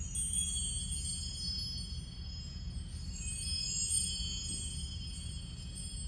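Metal chimes ringing: a cluster of high, overlapping bell-like tones that shimmer and decay, set going again about three seconds in.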